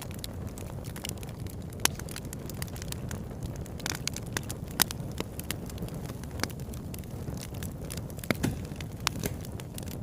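Campfire burning, the wood crackling with frequent sharp pops over a steady low rumble of flames.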